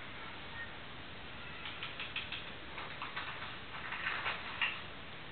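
Light, scattered taps and scrapes of small things on a tabletop, in two loose clusters, the first about two seconds in and the second from about three to nearly five seconds.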